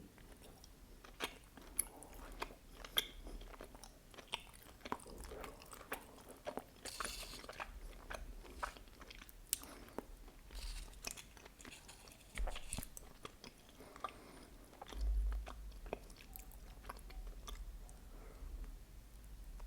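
Close-miked chewing and biting of mochi with red bean paste: wet mouth clicks and smacks, many short sharp ones, with a dull low bump about fifteen seconds in.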